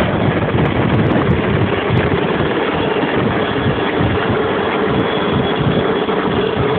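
Rescue helicopter hovering low overhead, its rotor thudding rapidly over a loud, steady engine roar. A thin high whine comes up near the end.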